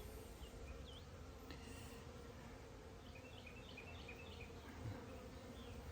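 Honey bees buzzing around an open hive: a faint, steady hum of many bees.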